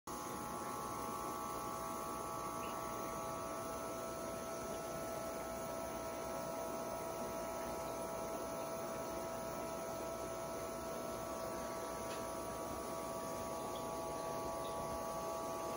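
Steady electrical hum, a few fixed tones over a low even hiss.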